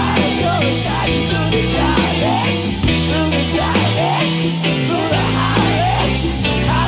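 Live rock band playing an instrumental passage: a lead line of bending, sliding notes over a stepping bass line and steady drums.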